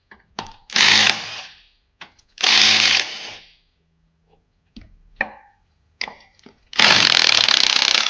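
A power tool run in short bursts to back bolts out of a VW 020 manual gearbox case: two bursts of under a second in the first half and a longer one near the end. Light clicks and knocks of parts being handled between them.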